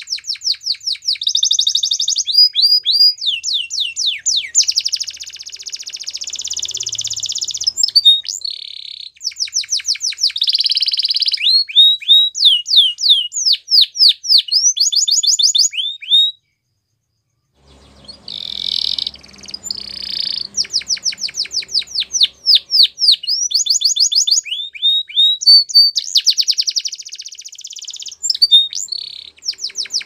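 Domestic canary singing: fast series of repeated chirps that sweep up and down, run together with sustained rolling trills, with a break of about a second halfway through.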